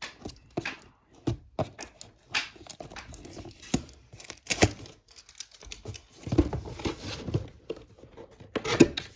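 Packaging being handled and opened: irregular crinkling, tearing and light knocks of cardboard and plastic.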